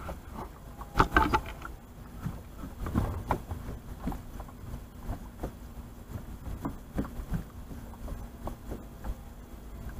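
Light scattered knocks and taps of an angler shifting his feet and handling gear on a small fishing boat's deck, with a brief louder burst about a second in. A faint steady hum comes in about two seconds in.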